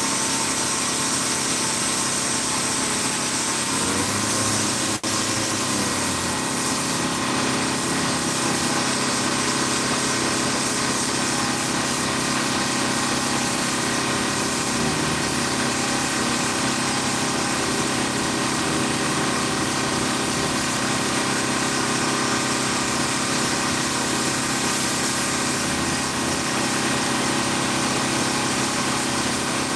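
A power sander running steadily as it sands body filler (Bondo) on a car body panel, a continuous motor hum with dense sanding hiss. It cuts out for an instant about five seconds in.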